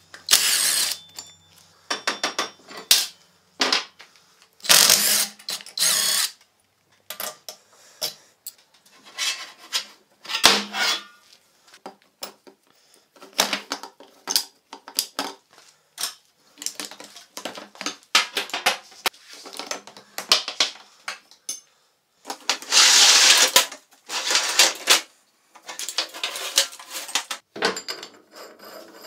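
Handheld power tool run in many short bursts, each from half a second to a second and a half and one longer near the end, with sharp knocks in between, typical of metal fabrication work.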